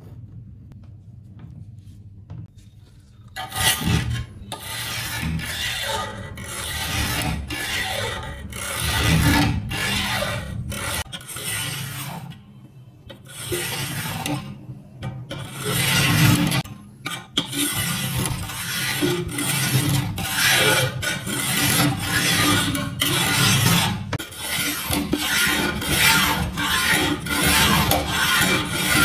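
A hand file rasping along the edge of a rusty steel knife blank held in a bench vise, in repeated strokes that start about three and a half seconds in.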